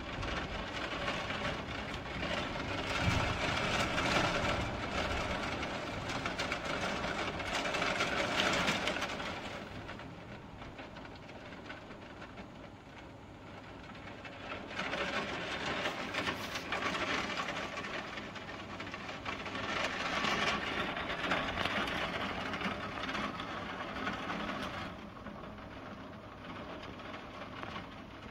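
Heavy downpour: a steady hiss of rain that swells and eases in surges several seconds long, loud in the first third, dipping, then building again before falling off near the end.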